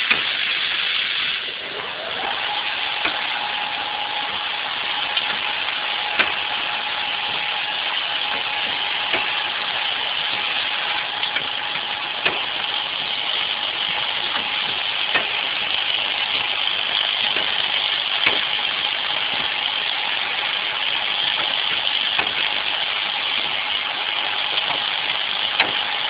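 Automatic pad printing machine for optical fiber plugs running: a steady hissing mechanical noise with a steady whine that comes in about two seconds in, and a short click about every three seconds.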